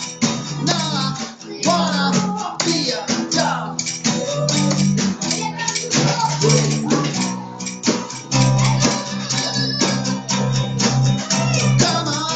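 Electric bass guitar being played, its plucked low notes running under a fuller musical backing with steady rhythmic attacks.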